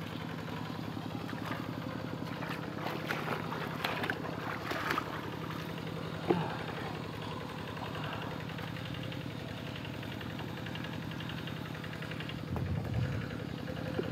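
Two-wheel hand tractor's single-cylinder diesel engine running steadily, with a few clatters and knocks around the middle and one sharp knock about six seconds in.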